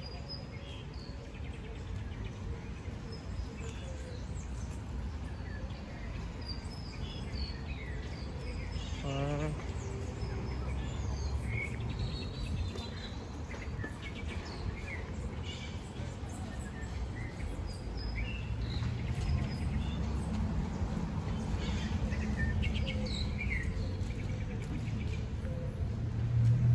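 Park ambience: birds chirping in the trees over the low steady rumble of street traffic. A passing vehicle grows louder near the end, and there is a brief wavering call about nine seconds in.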